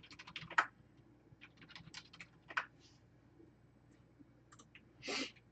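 Faint clicks, taps and light scrapes of a plastic mini football helmet being turned over in the hands, busiest in the first second, then a short brushing rustle about five seconds in.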